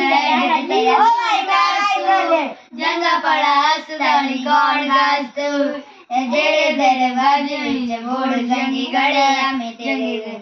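Children singing a song, with two short breaks for breath about a quarter and about halfway through.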